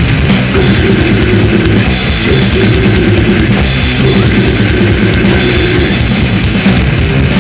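Death metal song: fast, dense drumming with cymbals under sustained distorted guitar notes, loud and unbroken.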